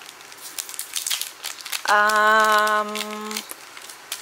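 Foil wrapper of a Pokémon TCG booster pack crinkling and tearing as it is ripped open by hand, with many short crackles. In the middle a voice holds one hummed note for about a second and a half.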